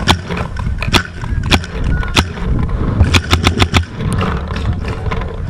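Paintball marker shots: four single pops spaced out, then a quick string of about six, over low wind rumble on the microphone.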